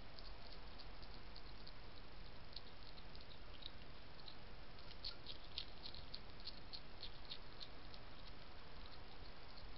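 European hedgehog crunching dry kitten biscuits from a dish: an irregular run of small, crisp crackles, busiest about five to seven seconds in, over a steady hiss.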